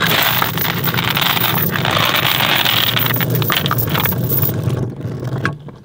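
Boat anchor being let go: the anchor chain rattling and scraping as it pays out over the bow, a loud, continuous clatter that dies away just before the end.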